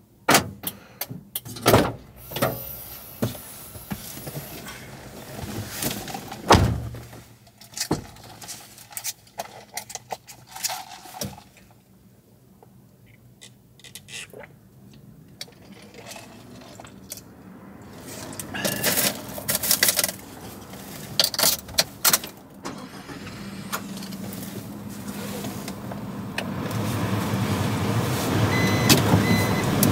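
Clicks, knocks and light rattles of things being handled, then a low rumbling noise that slowly grows louder over the last several seconds.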